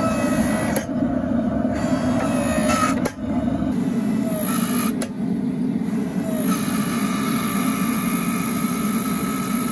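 Electric log splitter converted to a forging press, its motor and hydraulic pump running steadily as the ram squeezes a bar of hot steel. A higher steady whine joins about two-thirds of the way through.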